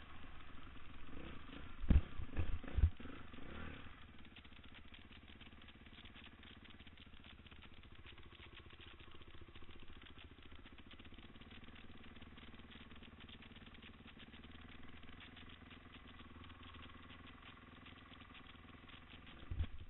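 Dirt bike on a rocky trail climb: a few heavy knocks in the first four seconds, then the motorcycle engine running low and steady with light rattling and clicking.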